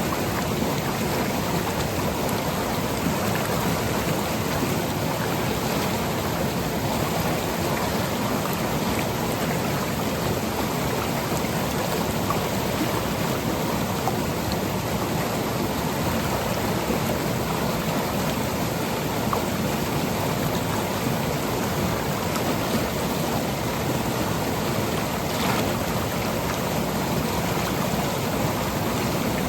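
Seasonal monsoon stream running over rocks and pebbles: a steady, even rush of flowing water.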